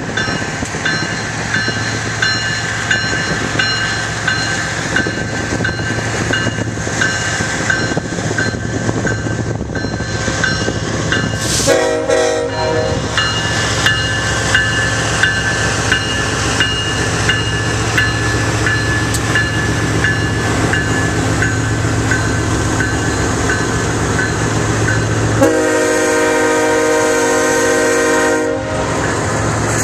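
A BNSF diesel-hauled freight train rumbles past at track level. Its locomotive air horn sounds a short blast about twelve seconds in and a longer blast of about three seconds near the end, as the autorack cars roll by.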